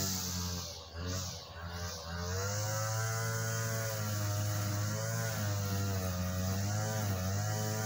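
A low, steady droning hum with several overtones, its pitch wavering slowly up and down.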